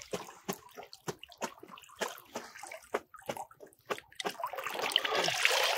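Shallow water splashing and sloshing as a wet cast net is gathered up by hand, with a run of small splashes and drips. A denser, louder rush of splashing water starts a little past four seconds in.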